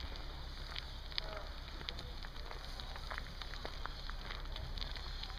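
Noise of a bicycle rolling along a tarmac path: a steady low rumble with a hiss and irregular crackling ticks.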